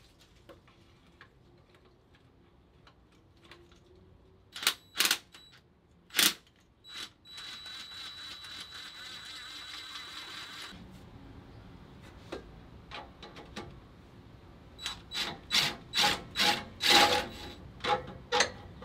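Hand and power tools on the gearbox-to-engine bolts: a few sharp metallic knocks, then about three seconds of steady whirring, then a quick run of clicks near the end.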